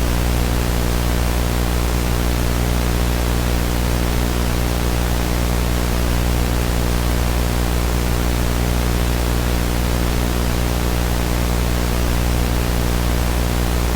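TV glitch sound effect: a steady static hiss with a low buzzing hum underneath, unchanging throughout.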